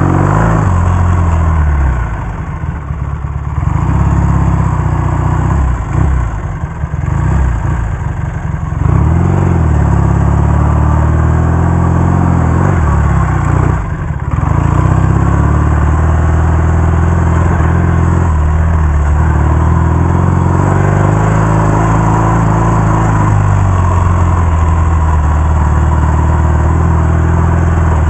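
1967 Triumph Bonneville T120R's 650 cc parallel-twin engine, heard from the rider's helmet on the move. The engine rises and falls in pitch with the throttle, backing off twice in the first third and dropping briefly about halfway through before pulling steadily again.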